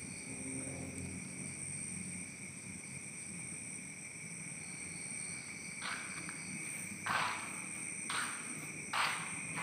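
A steady, high-pitched chorus of night insects. In the last few seconds a series of short, sharp noises comes about once a second.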